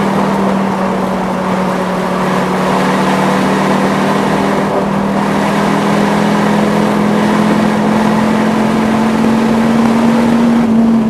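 Dodge Viper X10's V10 engine pulling hard at nearly constant revs, heard from inside the cabin over wind and tyre noise; its pitch creeps up slowly near the end.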